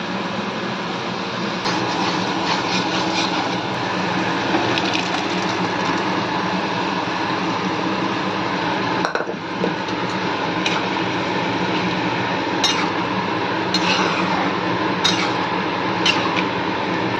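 A steel ladle scooping cooked kidney beans and clinking against metal cookware, with several sharp clinks in the second half, over steady kitchen noise.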